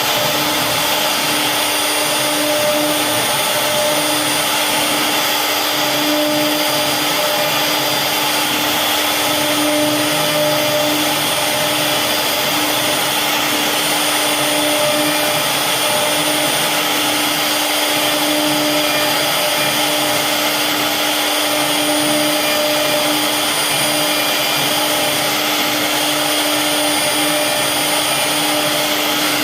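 CNC wood router's spindle running steadily as it carves wood: an even whine over a constant hiss, with no breaks.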